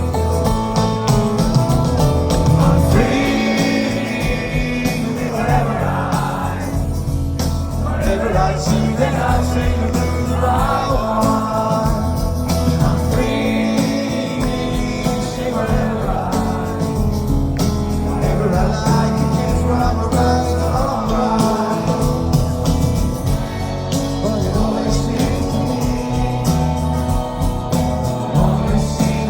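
Live rock band performance heard from the audience: guitars, bass and drums with sung vocals over a steady beat.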